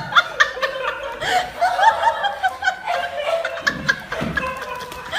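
High-pitched laughter in quick, short, rising-and-falling 'ha' notes, repeated several times a second.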